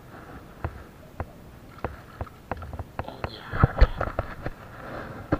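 Spinning reel being cranked while a giant freshwater prawn is reeled in, with sharp clicks about every half second. About three seconds in the clicks come faster among knocks and rustling, the loudest a thump just before four seconds as the catch is lifted clear of the water.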